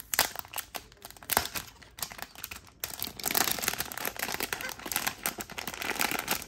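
Thin clear plastic bag crinkling as it is handled and pulled open, with a sharp crackle about 1.4 s in and denser crinkling from about 3 s on.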